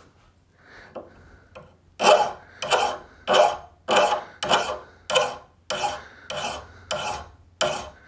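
Hand file being pushed in regular strokes across a steel mower blade, roughly one and a half to two rasping scrapes a second, after a couple of seconds of lighter scraping. The file is taking the burr off the back of the freshly sharpened cutting edge.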